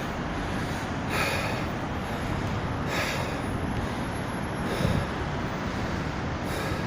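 A person breathing heavily close to the microphone, a breathy rush about every two seconds, over a steady low outdoor rumble.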